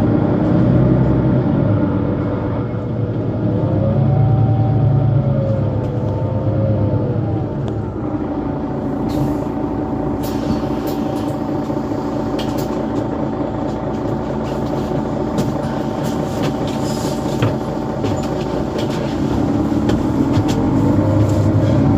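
Mercedes-Benz Citaro C2 Euro 5 city bus driving: the diesel engine and driveline whine rise and fall a few seconds in as the bus pulls away and shifts, then hold steady while cruising, with scattered rattling clicks. The whine climbs again near the end.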